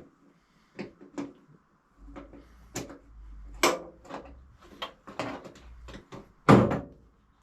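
Metal knocks and clanks, a quick run of sharp strikes, as the threaded height-adjusting foot of an old lathe stand is worked loose by hand; the loudest knock comes near the end.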